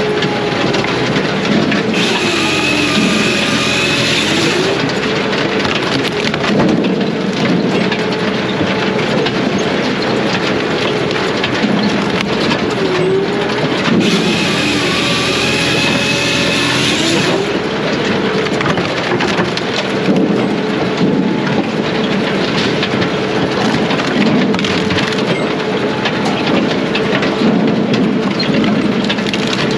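Brute Force USA 18-24HD diesel firewood processor running steadily under work. Twice, about two seconds in and again around fourteen seconds, a freshly sharpened chain saw bar cuts through a log for about three seconds, and the engine note dips under the load and recovers.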